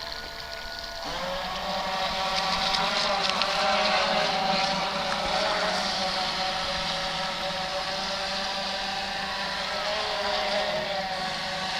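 Electric RC boat's motor starting to whine about a second in and running at speed, its pitch wavering slightly, over a steady hiss.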